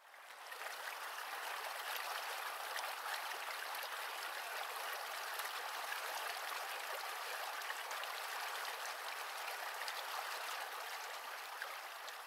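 Running water of a shallow stream flowing over stones: a steady, even rush that fades in at the start.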